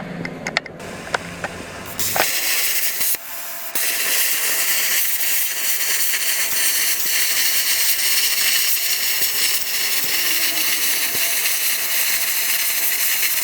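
A few clicks, then about two seconds in a metalworking tool starts a loud, steady hiss on steel. The hiss gets louder a little later and holds.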